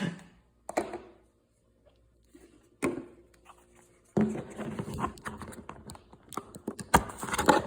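Small plastic containers being handled: a couple of single knocks, then a longer stretch of rustling and clattering as they are picked up and moved about.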